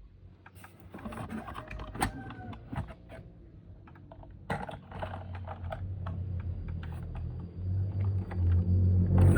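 A run of light clicks and taps, like plastic toy vehicles and packaging being handled, with two sharper knocks about two seconds in and halfway through. A low hum builds up through the second half.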